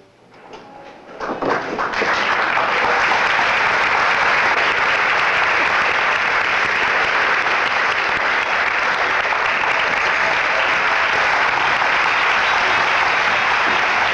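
Theatre audience applauding. A few scattered claps about a second in swell into full, dense applause by two seconds, which then holds steady.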